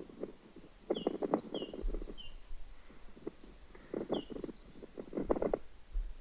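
Small songbirds chirping: two runs of short, high chirps, each chirp with a quick falling note, starting about half a second in and again around four seconds in, over patches of lower crackling noise.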